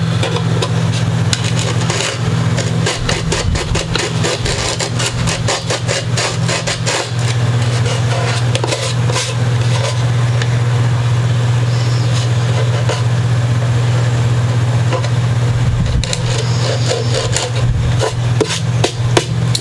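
A file rasping against the wood of a guitar body in quick strokes, mostly in two spells, the first a few seconds in and the second near the end, over a steady machine hum.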